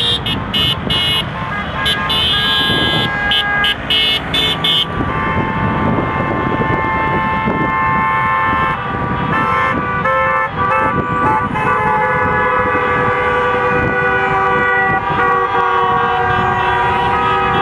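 Many car horns honking at once from a passing procession of cars, long and short blasts at different pitches overlapping, over engine and tyre noise. A fast, high on-off beeping sounds through the first five seconds. The honking is celebratory, from cars with flags waving out of their windows.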